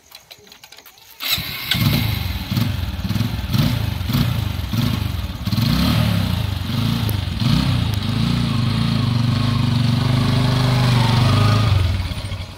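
Motorcycle engine starting about a second in, revved up and down several times, then running at a steady note.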